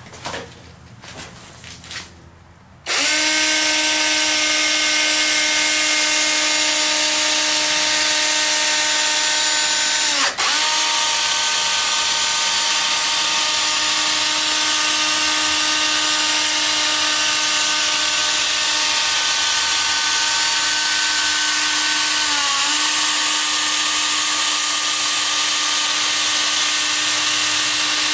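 A DeWalt cordless drill, set to its slowest speed, runs steadily as its 500-grit sanding disc is pressed against a plastic headlight lens, sanding off the cloudy clear coat. It starts about three seconds in, after a few knocks of handling, and its pitch dips briefly twice as the disc loads against the lens.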